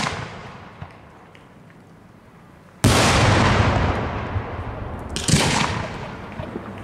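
Aerial firework shells bursting: one loud bang about three seconds in with a long fading echo, a second bang about two seconds later, and faint crackling between.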